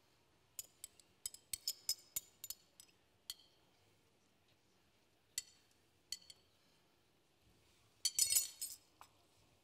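A spoon clinking against a small glass bowl as food is spooned out of it. There is a quick run of about a dozen sharp clinks in the first three seconds, then a few single taps, then a short burst of rapid clinks near the end.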